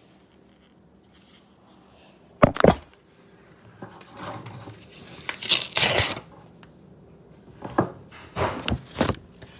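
Household handling and rummaging noises: a sharp knock, a rustling scrape, then several more knocks and clatters.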